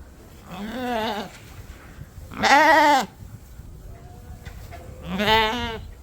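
Dorset lambs bleating three times, each a quavering call under a second long, the middle one the loudest. They are newly weaned lambs calling for their milk bottles.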